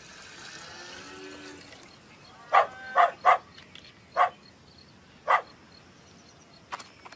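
Five short, sharp, pitched squeaks or cries in quick succession on an animated cartoon's soundtrack, after a few faint pitched sounds at the start.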